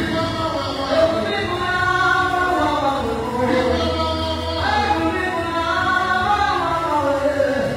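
A woman singing a gospel worship song through a handheld microphone and PA, her voice gliding through long held phrases over a steady low instrumental bass.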